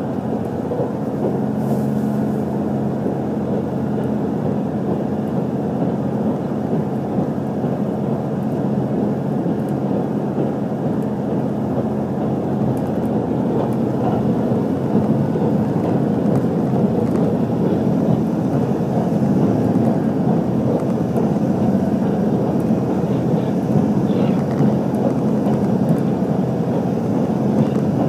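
Steady running noise inside an HC85 hybrid diesel express railcar under way: a rumble of wheels on rail with a low hum from the drive, growing a little louder about halfway through.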